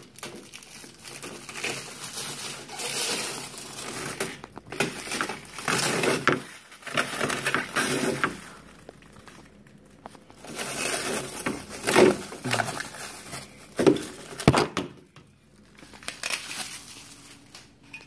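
Protective plastic film being peeled off a new refrigerator's shelves and crumpled in the hand, crackling in long stretches. A few sharp clacks of plastic fridge parts come in the second half.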